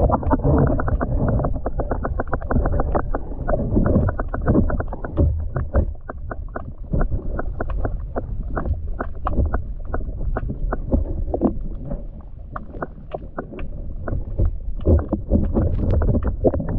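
Underwater sound from a camera held below the surface: a muffled low rumble of moving water with many sharp crackling clicks, several a second.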